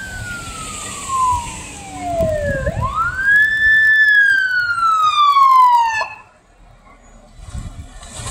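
Fire engine's siren wailing: a long falling tone, a quick rise about two and a half seconds in, then a second slow fall that cuts off suddenly about six seconds in. The truck's engine and road noise rumble underneath.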